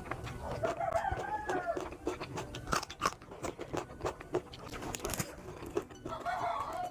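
Close-up crunching bites and chewing of papaya, with many sharp crunchy clicks. A rooster crows in the background about a second in and again near the end.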